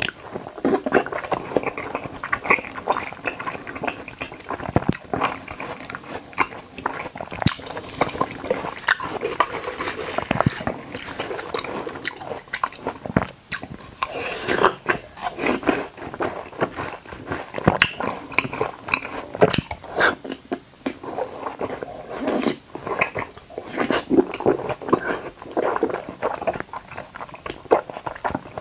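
Close-up eating sounds of watermelon chunks and konjac jelly: wet slurps, smacks and juicy chewing, a dense uneven run of small clicks with no pauses for talk.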